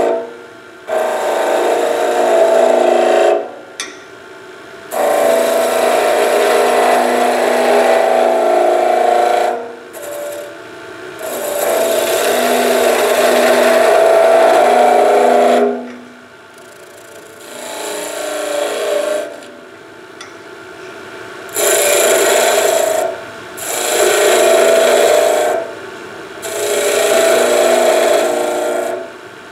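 Skew chisel cutting into spindle wood turning on a lathe, in about seven passes of one to five seconds each with short pauses between, as beads and coves are shaped.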